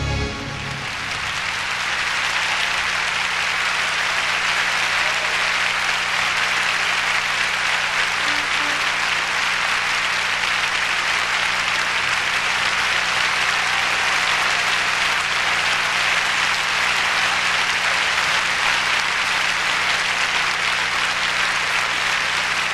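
Large concert-hall audience applauding, a dense, steady roar of clapping that swells over the first couple of seconds and then holds. The band's music stops right at the start.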